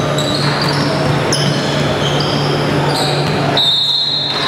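Basketball game in a large gym: sneakers squeaking on the hardwood floor and a ball bouncing, over a steady low hum. About three and a half seconds in, a short steady whistle blast sounds, and play stops.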